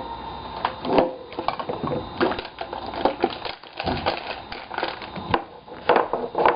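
Trading-card packaging being worked open by hand: a run of irregular crinkles, rustles and small plastic clicks and taps.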